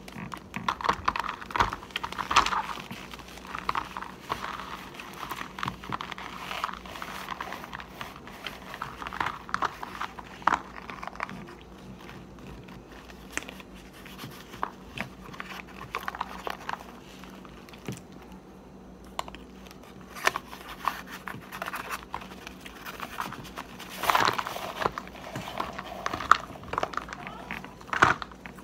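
Biting into and chewing a compressed brick of cornstarch: irregular crisp crunches and crackly crumbling that come in clusters, busiest near the start and again near the end.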